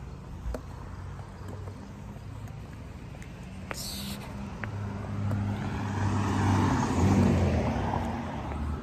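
A car driving past. Its engine hum and tyre noise grow louder over several seconds, peak near the end, then fade.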